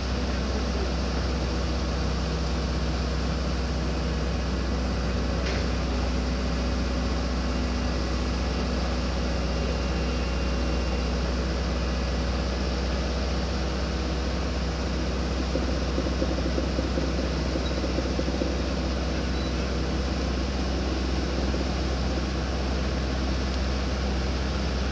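Hydraulic excavator's diesel engine running steadily, a constant low hum with no change in pitch or level.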